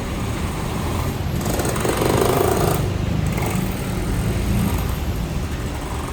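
Steady low rumble of city road traffic below a raised walkway. From about a second and a half in comes a louder rushing burst lasting about a second and a half.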